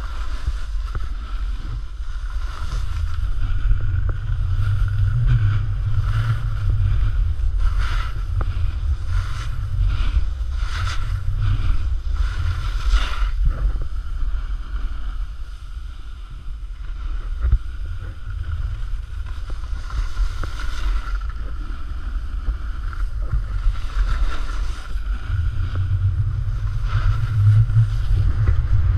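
Wind buffeting an action camera's microphone as a snowboard slides downhill, a steady low rumble with repeated short hissing scrapes of the board's edges on the snow.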